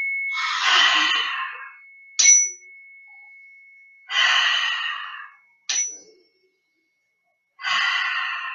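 A handheld chime is struck twice, each strike ringing out as one clear tone that fades slowly, while the ring of an earlier strike dies away at the start. Between the strikes come three long breaths blown out through the mouth, deep breathing paced by the chime.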